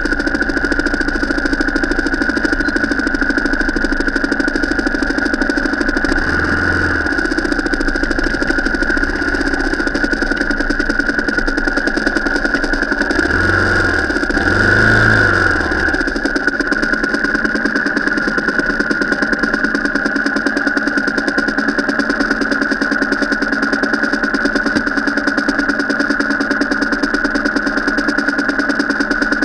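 Car engine running steadily while driving off road. There are a few brief deeper rumbles, around a quarter of the way in and again near the middle.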